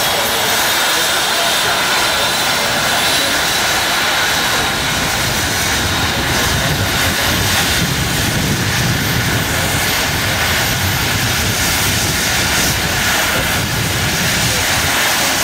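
Eurocopter EC135 helicopter running on the ground with its main rotor turning: a steady turbine whine over rotor and engine noise. A low rotor throb grows stronger about halfway through.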